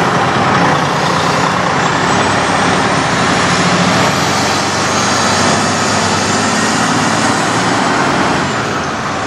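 Diesel engine of a 2003 Freightliner Classic semi truck pulling its trailer slowly away, running steadily and loud, with a faint high whine rising in pitch over the first few seconds.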